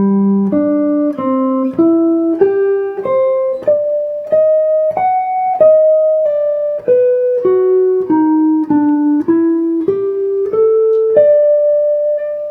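A guitar plays a slow single-note jazz line, one plucked note about every half second. The line climbs for about five seconds, falls back, then rises again and ends on a held note that rings out near the end. It is a ii–V–I lick in G major, moving over A minor 7 and D7 and finishing with a G major pentatonic run up.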